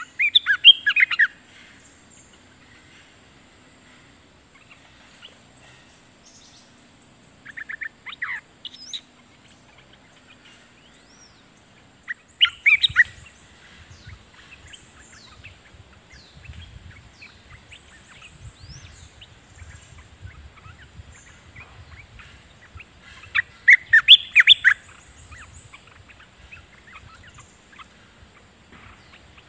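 Olive-winged bulbul calling: four short bursts of quick, bubbly warbled notes, spaced several seconds apart with quiet gaps between.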